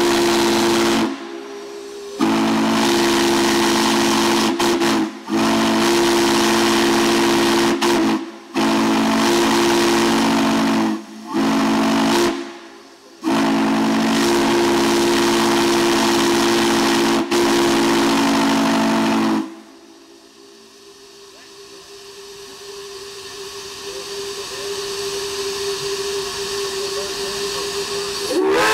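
Chime steam whistle sounding a chord of several low notes in six long blasts with short breaks. After about 19 s it stops and steam hisses softly with a faint steady tone. Near the end the whistle opens again, its pitch sliding up as it comes in.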